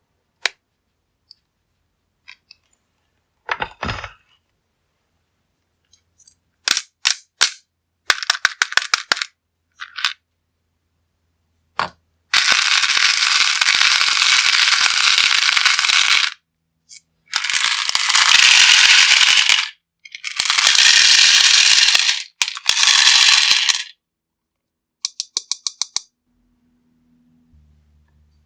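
Small hard-coated candies clattering into a container: a few single clicks and short clatters, then four steady pours of a few seconds each as a stream of candies rattles in, and a quick run of clicks near the end.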